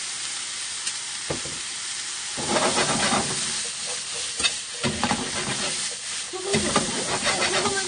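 Mushrooms and onions sizzling in oil in a nonstick frying pan, with a steady hiss. From about two and a half seconds in, a silicone spatula stirs and tosses them, scraping against the pan in three louder bursts.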